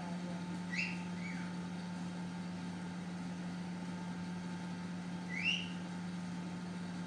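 Steady low mechanical hum, with two brief rising squeaks, one about a second in and one about five seconds in.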